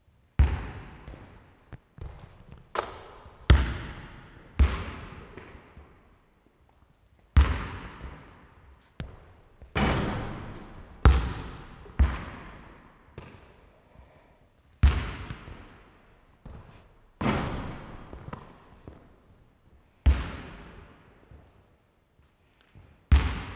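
A basketball bangs on the hard floor of a large sports hall, with bounces coming irregularly about once a second. Each bang echoes for a second or more in the big hall.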